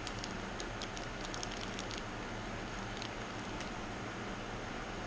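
Steady hum and hiss of a running fan. Over it come faint light clicks and crinkles of small metal fuel fittings (banjo bolts and copper sealing washers) and plastic parts bags being handled, mostly in the first two seconds.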